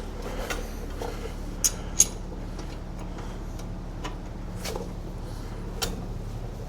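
A few sharp metallic clicks and clinks of a socket wrench on a bolt that is badly overtightened, over a steady low hum.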